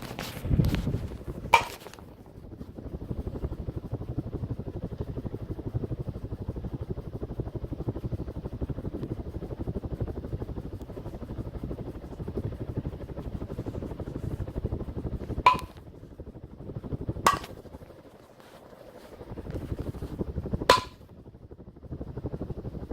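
Quorum Celtic ceiling fan running with a steady fluttering rumble, the noisier of a pair and slightly off balance. Several sharp clicks stand out over it: a few in the first two seconds and three more in the last third.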